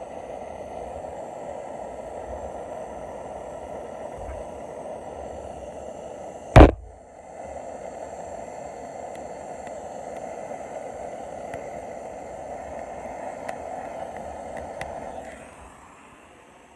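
Handheld torch flame hissing steadily while it heats Shoe Goo glue on an RC boat's drive line. One loud, sharp knock about six and a half seconds in, and the flame cuts off near the end.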